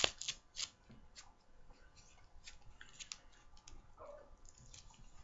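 Velcro wrist strap of a football receiver glove being peeled and pressed, heard as a sharp click followed by a scatter of faint crackling clicks.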